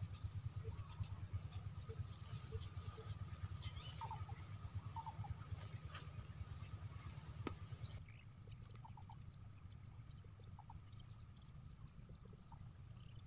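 Field insects trilling in a high, pulsing buzz, strongest over the first three seconds and again briefly near the end, over a steady thin high tone, with a few faint clicks and rustles.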